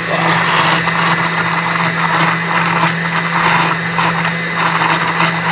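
Countertop kitchen blender running steadily at speed, churning a liquid flan mixture of eggs, cream cheese, condensed milk and evaporated milk.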